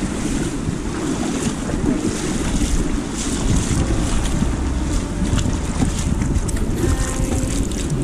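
Shallow rocky stream running over stones, a steady rushing, with wind buffeting the microphone.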